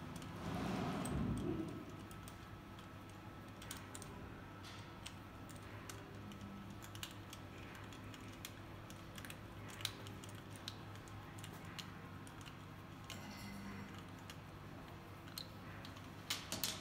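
Light metallic clicks and taps of a hand tool being worked on an engine's cylinder head, scattered and irregular with a small cluster near the end. A brief louder rustle of handling comes about half a second in.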